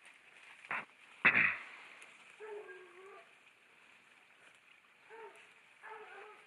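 A dog giving voice in the brush: two sharp barks about a second in, the second one loud, then several short, curving cries.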